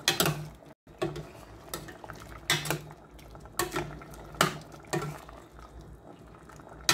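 A ladle stirring chicken feet and liver in a stainless steel pot, knocking and scraping against the pot's side about once a second, irregularly, over the soft bubbling of the simmering sauce.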